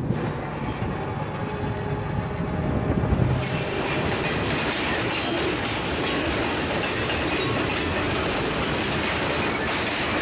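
Low rumbling noise for about three and a half seconds, then the steel wheels of loaded crude oil tank cars rolling past close by: a steady rolling roar with clicks as the wheels cross a bolted rail joint.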